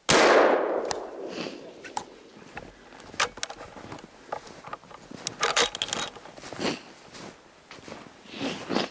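A single hunting-rifle shot, a sudden loud crack right at the start that rings out and dies away over about a second. It is followed by a few sharp metallic clicks and rustling of handling and movement in snow.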